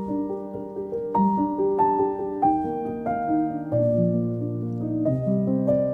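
Background music: a slow melody of single notes over held low notes.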